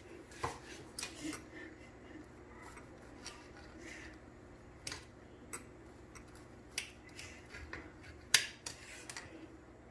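A knife cutting a baked, bread-wrapped stuffed green chilli on a plate: scattered sharp clicks and taps of the blade against the plate, the loudest about eight seconds in.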